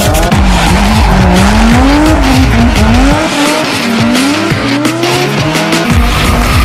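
Drift cars' engines revving hard, the pitch climbing and dropping again about once a second as the throttle is worked through the slides, over tyres squealing.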